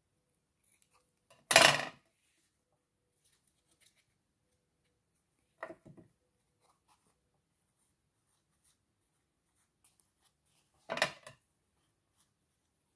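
Scissors cutting fabric: three short, sharp snips. The first, about one and a half seconds in, is the loudest; the others come about six and eleven seconds in.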